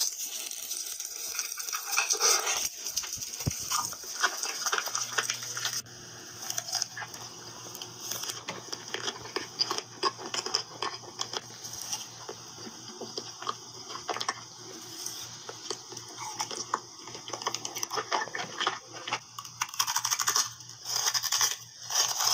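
Close-miked ASMR eating sounds: crunching, chewing and wet mouth smacks, with many small crackling clicks.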